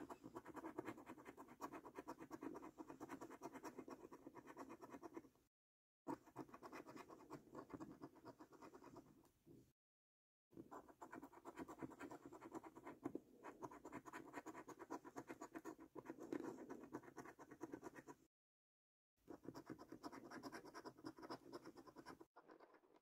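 A coin scraping the silver latex coating off a paper lottery scratch card in rapid back-and-forth strokes. The scratching stops dead three times for about a second each.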